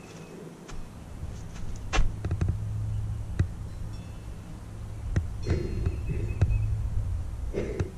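A handful of sharp clicks and knocks, a second or more apart, over a steady low hum, with short bursts of rustling about halfway through and again near the end.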